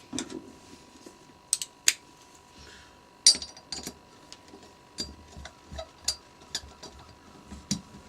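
Small metal clicks and taps, irregular and sharp, from a tool and parts working on a Mikuni carburettor as the float needle valve seat is screwed in and tightened.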